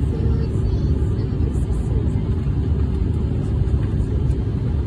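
Steady engine and airflow rumble inside an airliner cabin during the climb after takeoff.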